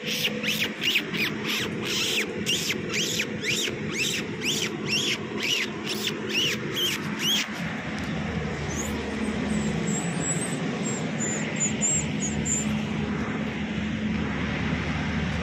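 Puppies yelping in a quick series of high-pitched yelps, about two to three a second, which stop after about seven seconds. A steady low machine hum runs underneath, and a few faint high chirps come later.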